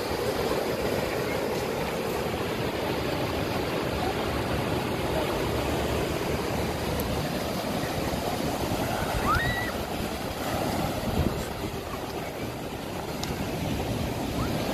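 Ocean surf breaking and washing up on a sandy beach: a steady rush of waves.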